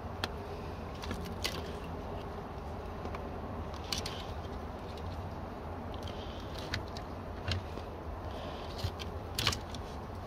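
Loose wires of a retrofit power-tailgate harness being handled. There are light rustles and about half a dozen short, sharp clicks, scattered irregularly over a steady low hum.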